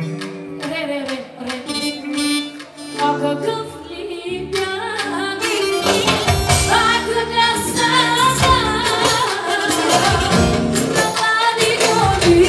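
Music with singing: a sparse opening of instrument notes over a steady beat, with a fuller, louder band sound coming in about five seconds in.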